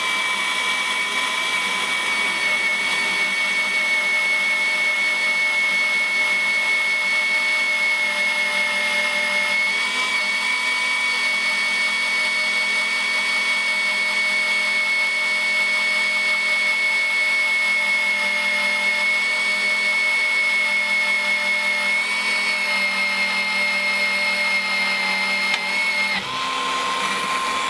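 Milwaukee M18 FUEL brushless magnetic drill at its slow 400 RPM setting, driving an annular cutter through steel plate: a steady high-pitched motor whine under cutting load. Near the end the whine stops and a lower steady tone takes over briefly.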